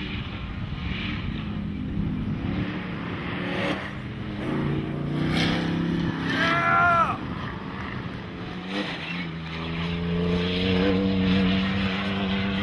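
Off-road race truck engines running hard past the road-crossing jump. About six seconds in, one engine's pitch rises sharply and falls again. From about nine seconds a steady engine note builds and stays loud near the end.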